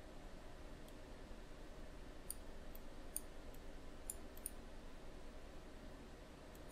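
Computer mouse clicking: about eight light, scattered clicks over a faint steady low hum.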